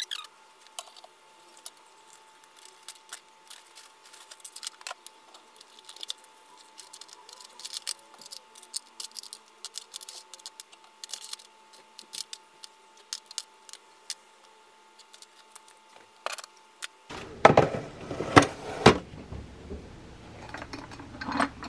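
Small plastic containers and toiletry bottles being handled and set down, giving many light clicks and clinks over a faint steady hum. From about 17 seconds in, louder knocks and rustling handling noise take over.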